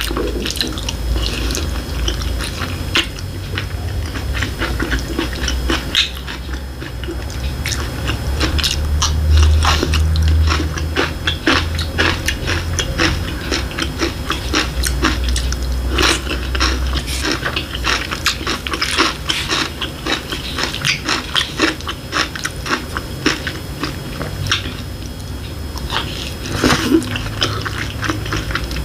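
Close-miked chewing of a mouthful of fried egg over rice, full of small irregular clicks and smacks.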